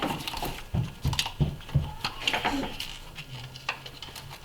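A series of irregular knocks and clicks, some with a dull thump, as the engine's valve cover is pried and worked loose from the cylinder head.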